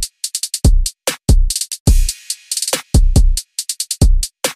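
Electronic drum-machine beat: deep kick drums that drop in pitch, mixed with quick high hi-hat- and snare-like hits in a choppy pattern, with brief silent gaps between the hits.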